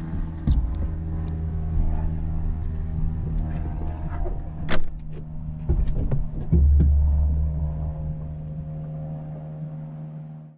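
A steady low mechanical hum with scattered knocks and clicks. A sharp knock comes a little under five seconds in, and the low hum grows louder about six and a half seconds in.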